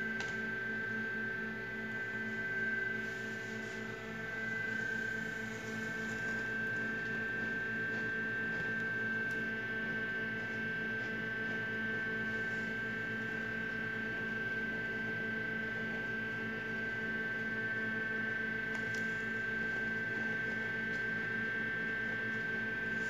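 A steady electrical hum with a high-pitched whine over it, unchanging, with a few faint clicks.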